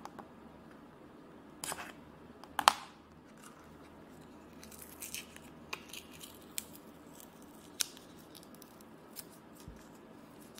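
Plastic wrap on a roll of washi tape being cut and picked at with a craft knife. Scattered clicks, scratches and crinkles, with the sharpest snap about two and a half seconds in.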